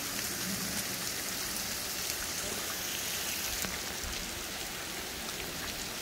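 A tall, thin waterfall whose water breaks into a veil of spray, falling onto rocks and a shallow pool. It makes a steady, rain-like hiss of drops, with the sharper ticks of single drops striking close by.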